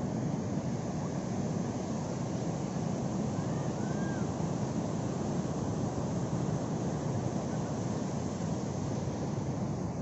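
Big ocean waves breaking on the beach: a steady, unbroken low rush of heavy surf.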